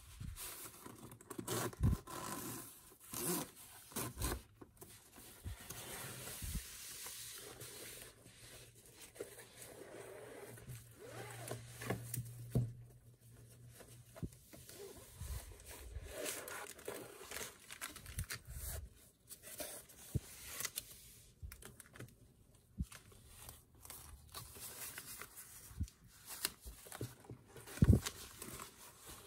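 Hands unzipping a padded fabric zip pouch and handling its contents: zipper rasps, rustling plastic sleeves and light scrapes on a wooden tabletop. A sharp knock comes near the end.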